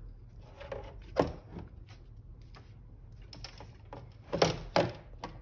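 Handling noise from wiring up a battery box: a few sharp clicks and knocks as metal cable lugs and the inverter's aluminium case are handled against a plastic milk crate. The loudest knock comes about a second in, and a pair of louder knocks comes near the end.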